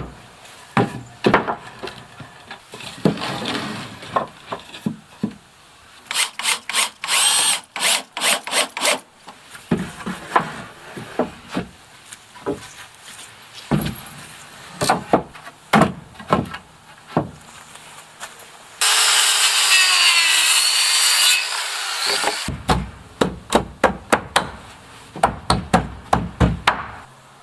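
Work on a timber wall frame: repeated sharp knocks in several quick bouts, and a power saw cutting through wood for about two and a half seconds a little past two-thirds of the way in.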